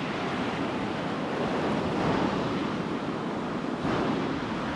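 Ocean surf breaking and washing on the shore in rough waves, with wind buffeting the microphone.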